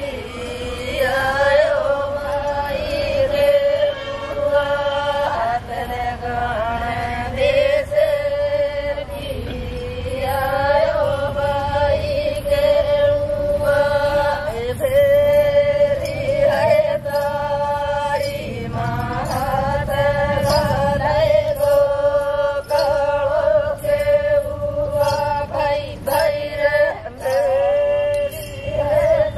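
Group folk singing in a chant-like style, voices rising and falling in phrases of a second or two over a steady held note.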